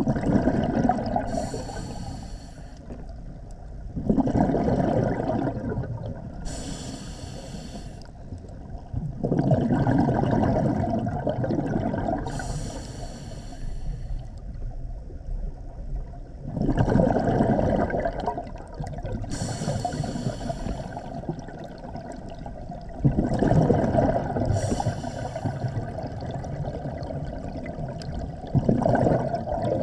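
Scuba diver breathing through a regulator underwater, about five breaths. Each breath is a short hissing inhale through the regulator, then a long, louder burble of exhaled bubbles.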